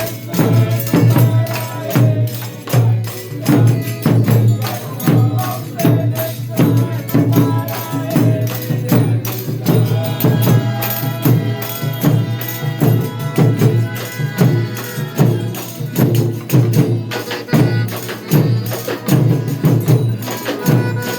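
Folia de Reis folk music: tambourines and other percussion beating a steady rhythm under pitched instrumental notes.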